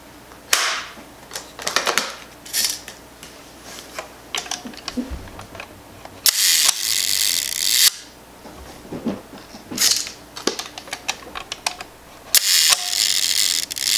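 Leaf shutter of a large-format press camera set to one second, being cocked and fired. Scattered clicks are followed twice by a buzzing shutter run of about a second and a half that cuts off sharply. The run hesitates, the sign of an unhealthy, sticking slow-speed mechanism.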